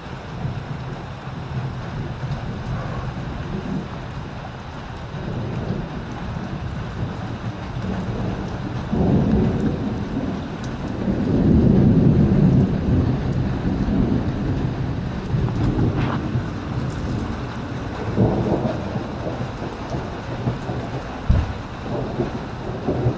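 Thunder rumbling over steady rain during a summer thunderstorm shower. A long low rumble builds about nine seconds in, is loudest a few seconds later and slowly fades, and a shorter rumble follows near the end.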